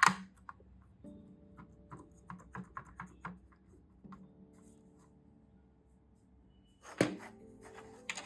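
Small plastic clicks and taps as mini-keyboard keys are fitted onto their locking clips, with a sharp louder knock at the start and another about seven seconds in, over soft background music.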